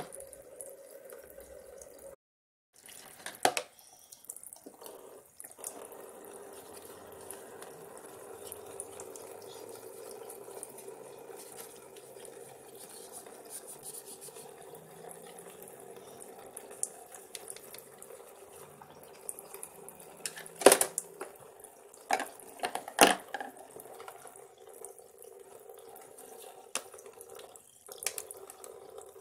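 A toy play sink's faucet running a steady stream of water into its plastic basin while plastic dishes are rinsed under it, with a few sharp clatters of plastic dishware, the loudest about 20 and 23 seconds in.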